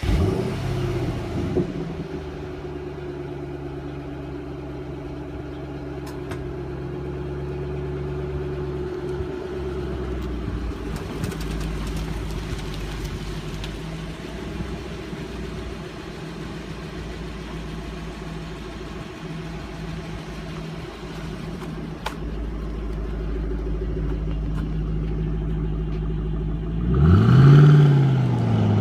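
2006 Mustang GT's 4.6-litre V8 exhaust through the stock mufflers: the engine catches right at the start and settles into a steady idle. Near the end it is revved up and back down, then starts rising again.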